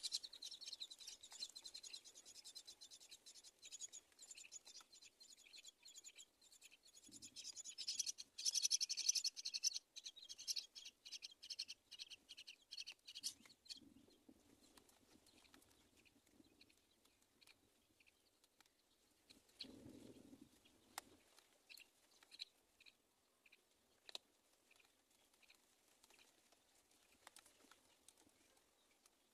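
Baby myna nestlings begging: a rapid, high-pitched chorus of calls for about thirteen seconds, loudest in the middle. It then breaks off into scattered faint ticks, with a few soft low thumps.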